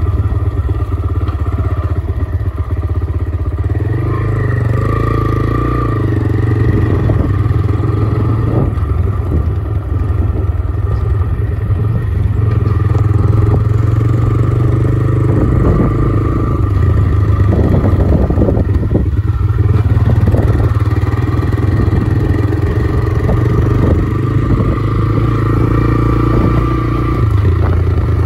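Motorcycle engine running steadily, heard from on the moving bike, with some rattles and knocks from riding over a rough dirt track.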